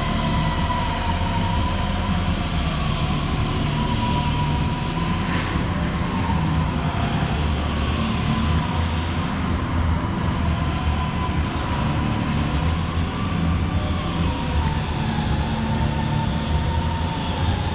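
Used 40 cu ft Gemco V-blender vacuum dryer running under test, its belt and gear drive turning the shell: a steady mechanical rumble with a whine that wavers slightly in pitch.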